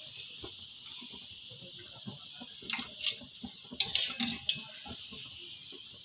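Doughnuts deep-frying in hot oil, a steady sizzle, with a few sharp clicks of metal tongs against the pan between about three and four seconds in as they are turned.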